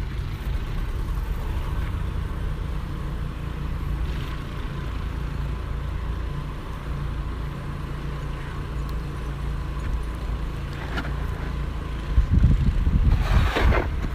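A vehicle engine rumbling steadily. Near the end a louder rushing noise swells and fades.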